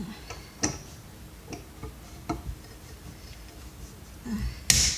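Screwdriver prying at a vacuum cleaner's plastic housing clamped in a vise: a few scattered clicks and knocks, then a loud sharp crack near the end as a piece of the plastic snaps off.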